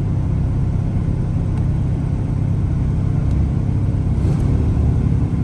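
1981 Corvette C3's 350 V8 running, a steady low rumble.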